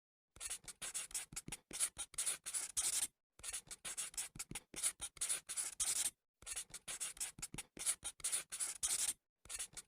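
Writing on paper: quick scratchy strokes, several a second, in four runs with short pauses between them.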